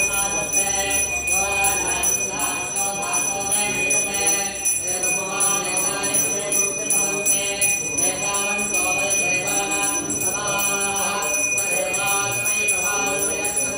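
Sanskrit mantras chanted in a steady flow, with a bell ringing continuously over them as a set of unwavering high tones.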